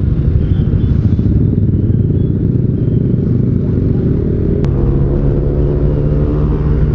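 Yamaha NMAX 155 scooter's single-cylinder engine running while riding, heard with a dense rumble of wind and road noise. After a brief click partway through, the engine hum holds a steady pitch.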